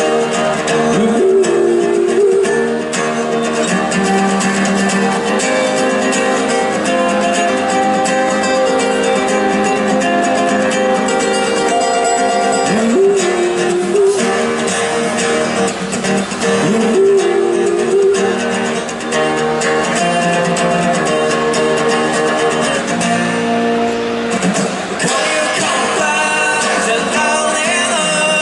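Live acoustic band music: an instrumental stretch of the song led by guitar, playing on without sung lyrics.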